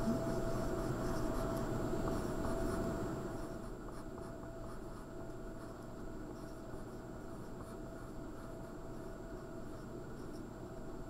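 Pencil writing on paper: the graphite scratching as a line of words is handwritten, stronger for the first three seconds or so, then fainter.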